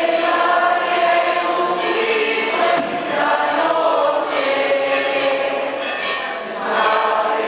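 Mixed choir of men and women singing a church hymn in long held notes.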